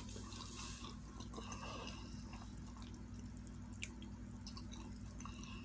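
Faint wet mouth clicks of a person eating, over a steady low hum.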